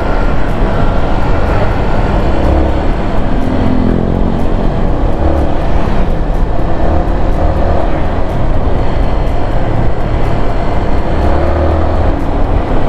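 Wind rushing over the microphone while riding a Yamaha MT-15, its 155 cc single-cylinder engine running steadily underneath.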